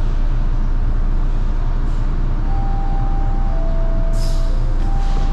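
Subway train running, heard from inside the car: a steady heavy rumble, with a faint whine coming and going in the middle and a short hiss about four seconds in.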